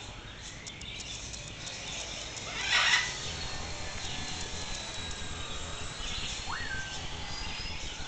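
A parrot gives one short harsh squawk about three seconds in, then a single whistle that rises and levels off about six and a half seconds in.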